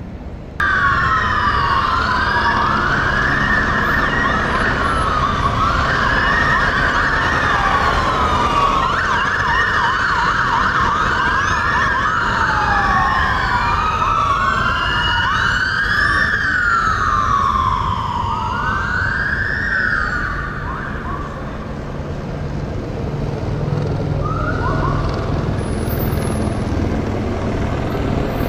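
Several emergency-vehicle sirens wailing at once, their rising-and-falling sweeps overlapping out of step, over a low rumble. They cut in suddenly, fade away about three-quarters of the way through, and one short sweep follows a few seconds later.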